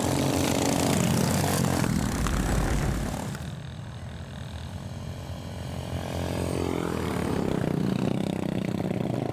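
Racing ride-on lawnmower engines running hard as the mowers go past. The engine sound drops off suddenly about three seconds in and swells again near the end.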